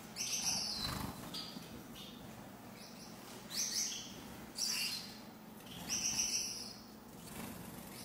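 Gouldian finches calling in an aviary: a handful of short, high, hissy calls, loudest near the start and again three times between about three and a half and six and a half seconds in.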